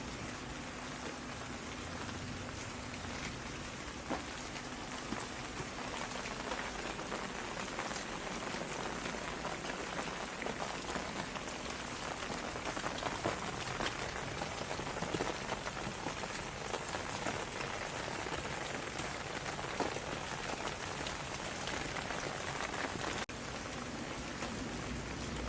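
Steady rain falling, a dense, even patter of many raindrops hitting a surface.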